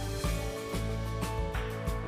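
Background music: instrumental track with steady held notes and regular plucked or struck notes.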